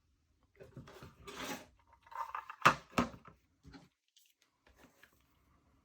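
Schlage round-body padlock being handled and turned over: small metal clicks, clinks and scrapes, with two sharp knocks a little before and after the halfway point.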